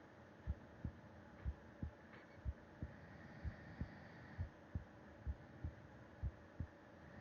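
A resting human heartbeat heard through the chest wall: a slow, steady lub-dub, each beat a pair of low thumps, about one beat a second. Soft breathing swells and fades every few seconds underneath.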